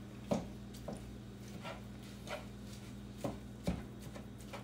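Meat-chopper tool breaking up raw ground beef in a skillet: soft, irregular taps and knocks against the pan, roughly one every half second to a second, over a faint steady hum.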